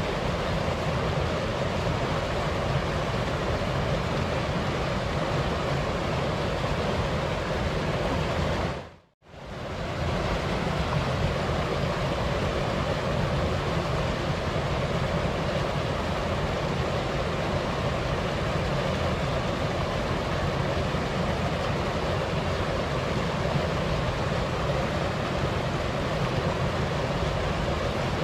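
Steady rushing of a waterfall with a light wind. It fades out almost to nothing and back in within about a second, some nine seconds in.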